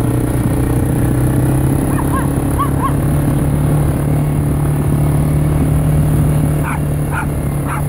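A four-wheeler (ATV) engine runs with a steady hum as it rolls along. Small dogs chasing it give three short yips about two seconds in and a few sharp barks near the end.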